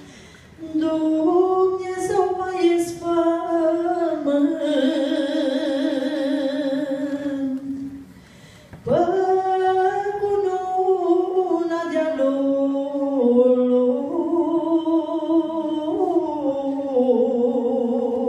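A solo female voice singing a Romanian folk song unaccompanied into a microphone, the melody held in long notes with a wavering ornamented pitch. Two long phrases, with a short breath pause about eight seconds in.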